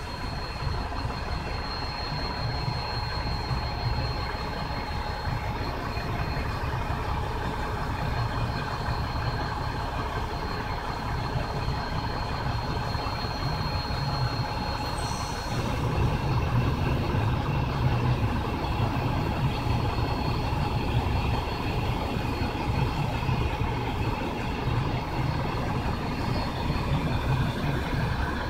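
Brushless electric motor and propeller of an FMS J3 Cub RC airplane droning in flight, the sound growing near the end as the plane comes closer. A louder, uneven low rumble runs underneath and strengthens about halfway through.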